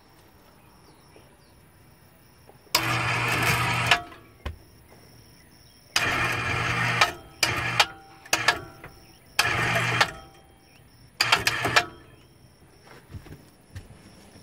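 Harbor Freight electric wire-rope hoist motor running in a series of short runs of about a second each, with a few quick taps in between, hoisting an HVAC air handler.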